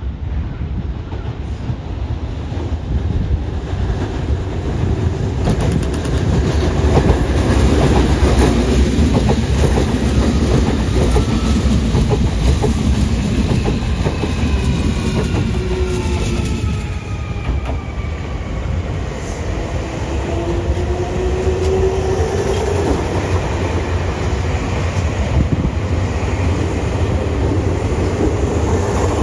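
Nankai electric commuter trains running at a station platform: first an 8300 series train, with wheels clacking over rail joints and a motor whine gliding down in pitch. Then, about 19 seconds in, a 3000 series train, whose motor tones rise in pitch.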